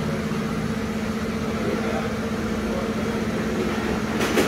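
Steady mechanical hum with a constant low tone over background noise, with a brief burst of noise near the end.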